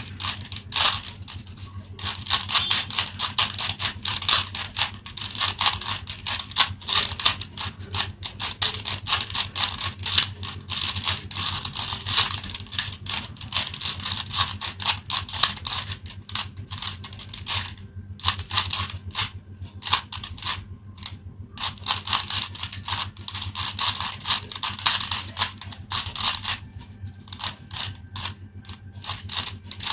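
A 3x3 Rubik's cube being turned rapidly by hand, its plastic layers clicking in quick runs with a few brief pauses, over a steady low hum.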